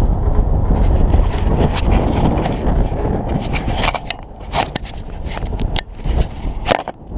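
Low rumbling wind noise on the microphone for the first few seconds, then a series of sharp knocks and scrapes as the crashed, mud-caked motorcycle and its mounted camera are handled.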